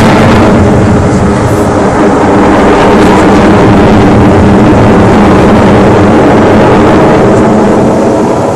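Very loud, steady engine noise of a military aircraft in flight, close to overloading the phone's microphone. The high hiss fades away in about the first second, leaving a dense low roar.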